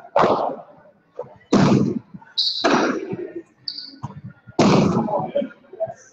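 Jai alai ball (pelota) smacking hard against the fronton's walls and floor in a rally: four loud cracks, each trailing off in the court's echo, with a few short high squeaks between them.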